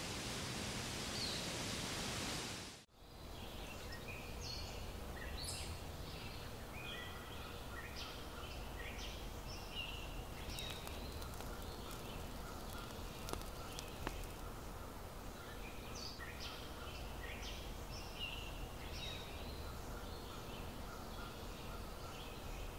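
A steady hiss for about three seconds that cuts off sharply. Then outdoor ambience follows: many small birds chirping and calling in short, high notes over a steady low background rumble.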